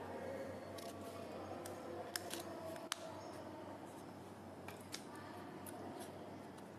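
A folded sheet of paper being handled and smoothed by hand, giving a few light clicks and taps, the sharpest about three seconds in, over a steady low hum.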